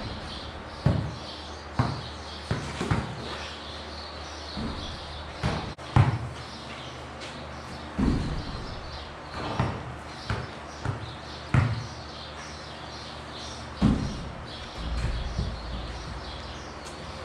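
A basketball bouncing and thudding in irregular single impacts, roughly a dozen of them one to two seconds apart, the loudest about six seconds in.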